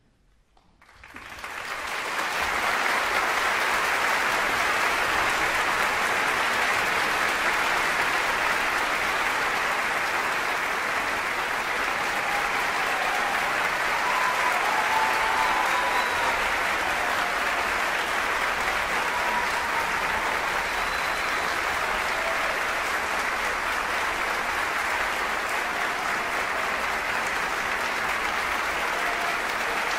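Large audience applauding, starting about a second in and swelling within two seconds to steady, sustained applause.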